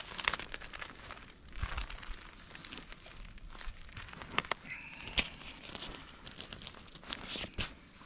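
Large tarp crinkling and rustling as it is handled, with scattered sharp clicks and knocks.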